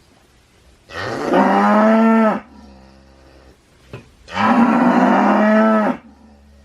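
A cow mooing twice: two long moos of about a second and a half each, each rising in pitch at the start and then holding.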